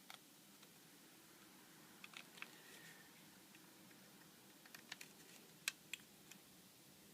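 Faint, scattered small clicks and ticks from a T5 screwdriver working the tiny screws out of a BlackBerry 9900's housing, over near-silent room tone.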